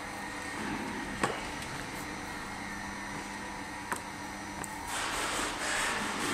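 Steady workshop hum, with two sharp clicks about a second in and near the four-second mark. Near the end comes a noisy rustling hiss.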